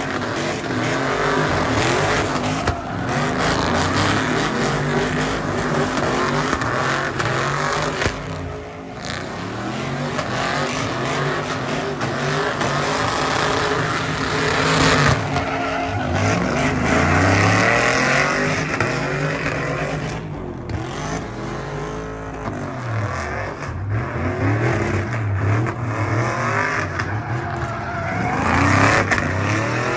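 Chevrolet Silverado pickup's engine revving hard during donuts, its pitch rising and falling again and again, over the screech of the rear tires spinning in a smoky burnout. The engine drops off briefly about a third of the way through, then winds up again.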